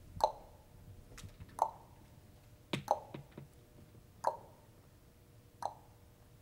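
Five sharp plinks, each with a short ring, repeating evenly about every second and a half, with a few fainter ticks between them.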